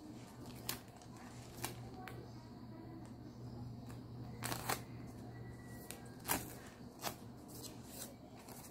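Clear plastic wrapping and a cardboard backing handled by hand: about half a dozen short, sharp crackles and taps, spread unevenly, over a steady low hum.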